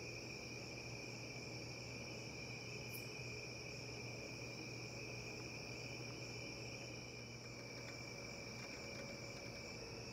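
A steady chorus of night insects, crickets, chirring in two high unbroken layers of pitch.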